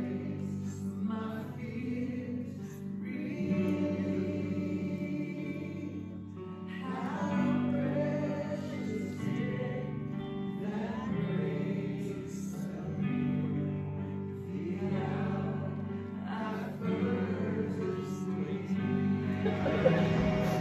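Christian worship song: a choir of voices singing slow phrases with long held notes over instrumental accompaniment.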